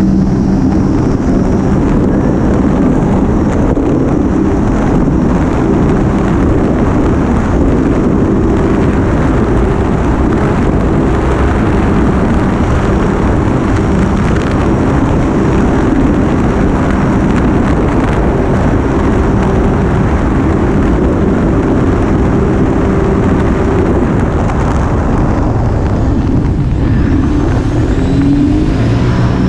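Motor of a small powered watercraft running steadily at speed, with water rushing past the hull and wind on the microphone; the engine note shifts and rises briefly near the end.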